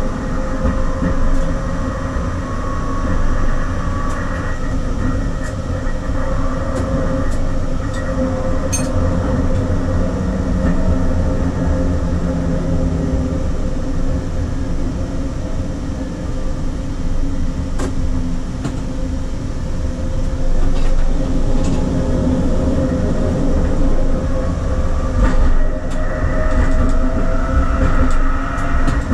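SL95 tram running along its line: a steady rumble of wheels on rail with a whine that rises near the end, and a few short clicks.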